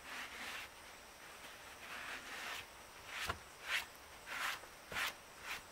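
Salt being scrubbed across the bottom of a cast iron skillet with a baked potato: a run of gritty back-and-forth scraping strokes that get louder and quicker in the second half, with a couple of light knocks.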